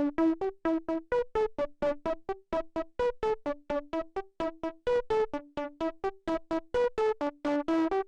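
Synthesizer lead through a Gamechanger Audio Plasma Pedal, a distortion pedal that turns the signal into high-voltage discharges in a xenon tube. It plays a fast repeating pattern of short, clipped notes, about five a second, moving between a few pitches, with a bright, buzzy distorted edge.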